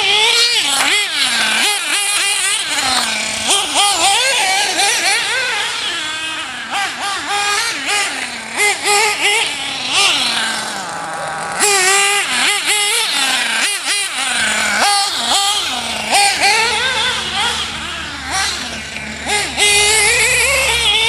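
Losi 1/8-scale nitro RC buggy's Go-Tech .21 two-stroke glow engine, a high-pitched whine that revs up and down again and again. It drops off sharply on the lift-offs and climbs back under throttle.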